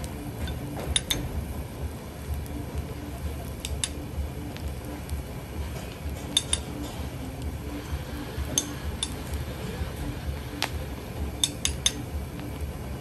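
Metal spoon clinking against scallop shells and the aluminium wok: a string of sharp separate clinks, several close together near the end, over a steady low hum.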